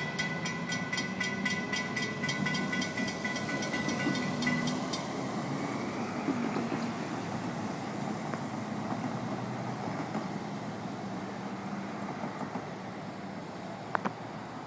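Railroad crossing bell ringing with rapid, even strokes, which stops about five seconds in as the gates rise after the train has cleared. Under it runs a steady low rumble of cars crossing the tracks, and there is one sharp click near the end.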